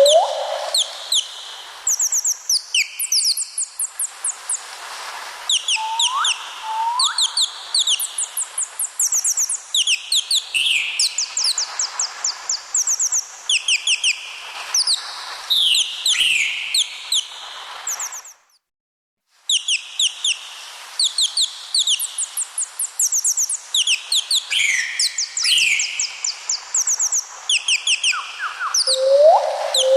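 Small birds chirping and twittering: quick runs of high, rapidly repeated notes mixed with a few short rising whistles. The sound cuts out completely for about a second past the middle, then resumes.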